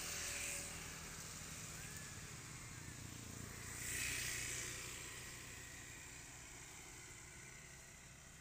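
Outdoor background noise: a low steady hum with two swells of hiss, the louder one about four seconds in, rising and fading like something passing by.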